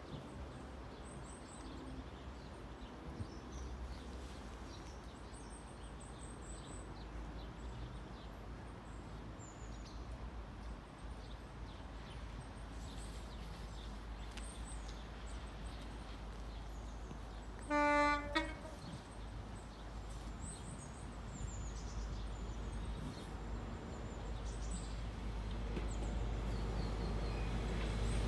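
Approaching InterCity 125 High Speed Train, its Class 43 diesel power car: a low rumble that grows steadily louder as it nears, with one short horn blast, under a second long, about two-thirds of the way through.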